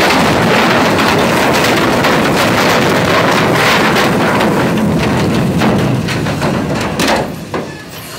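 Loud, steady hiss and rush of pressurised gas jetting out of a leak opened by a barge collision. It falls off about seven and a half seconds in.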